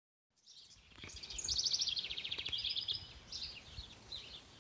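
Songbirds singing: a rapid, high trill of repeated notes lasting about a second and a half, followed by shorter chirps. A few faint low knocks sound under the song.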